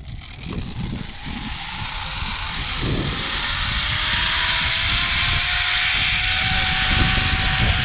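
Zipline trolley running down a steel cable: a steady rush of wind that builds over the first few seconds as the ride gains speed, with a thin whine from the pulley wheels that appears about three seconds in and slowly rises in pitch.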